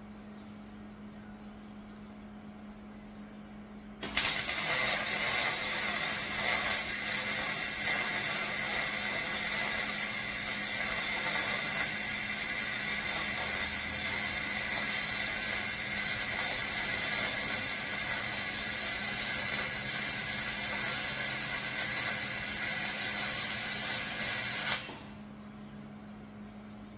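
Electric arc welding on the steel flatbed: a steady crackling sizzle of one long weld bead. It starts abruptly about four seconds in and stops just as abruptly some twenty seconds later. A faint steady hum runs under it.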